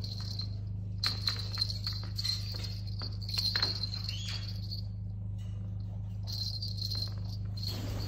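A kitten batting a string toy hanging by a ball: light taps and clicks with a high, thin jingling that comes and goes in short spells, over a steady low hum.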